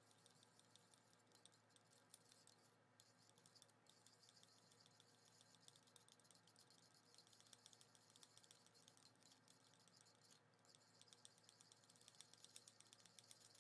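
Very faint, rapid clicking of a plastic spoon stirring a salty lemon-water mixture in a small plastic cup.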